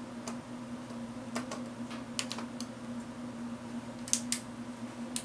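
Scattered sharp clicks of a hand on the Keithley 2001 multimeter's front panel, with two loud clicks close together about four seconds in and another near the end as its push-button power switch is pressed to switch it on. A steady low hum sounds underneath.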